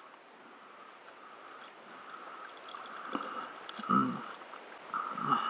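Lake water lapping and gurgling at the surface right by the microphone, with louder gurgles about four seconds in and again near the end.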